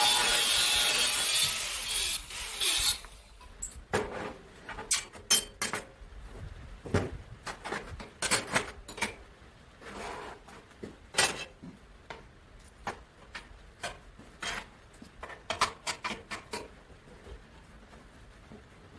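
A power tool, an angle grinder or saw cutting metal, runs loudly and stops about three seconds in. After that come scattered light clinks and knocks of metal pieces being handled.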